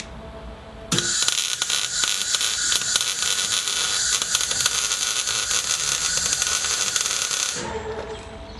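MIG welder arc crackling steadily while laying a weld bead on steel. It starts suddenly about a second in and stops near the end.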